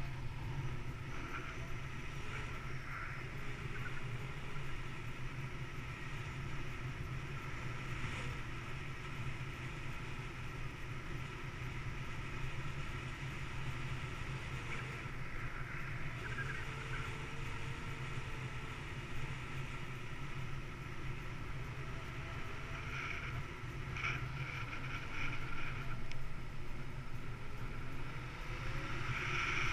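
Steady rush of air over the camera microphone during a paraglider flight, getting a little louder near the end.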